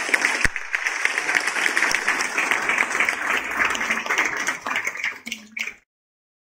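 Audience applauding, many hands clapping together. The applause cuts off abruptly shortly before the end.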